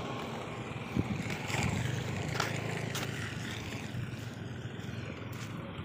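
Wind rumbling on a handheld phone's microphone, with rustling and a few sharp knocks from handling, the loudest about a second in.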